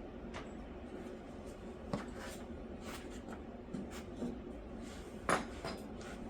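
Scattered light taps and knocks of hands and tools handling materials, with one sharper knock about five seconds in.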